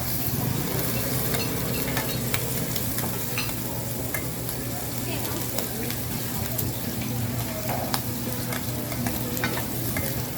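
Oyster-and-egg fried rice sizzling as it is stir-fried in a wok, with a metal spatula scraping and tapping against the pan many times, over a steady low hum.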